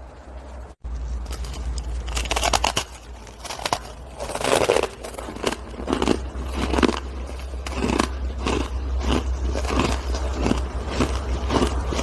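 A person biting and chewing hard shaved ice: a steady run of crisp crunches and crackles, starting about a second in, over a low steady hum.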